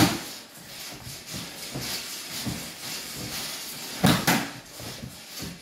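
Feet shuffling and stepping on slant boards and the floor during a back-and-forth footwork and striking drill, with two louder thuds, one at the start and one about four seconds in.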